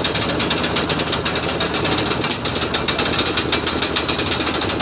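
Concrete mixer and material hoist machinery running at a roof slab pour: a loud, fast, even chugging rattle that holds steady throughout.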